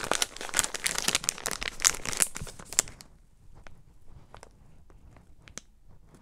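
Plastic bag around a packaged USB cable crinkling as it is handled, dense for about three seconds, then only a few light crackles.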